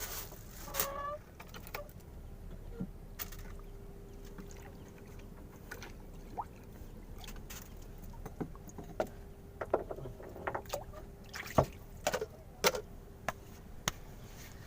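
Scattered knocks and clicks of gear being handled on a small fishing boat, over a low steady background; a faint steady hum runs through most of the middle.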